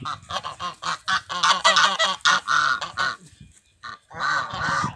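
A small flock of domestic guard geese honking in rapid, overlapping calls. They pause briefly about three seconds in, then break into another burst of honks near the end.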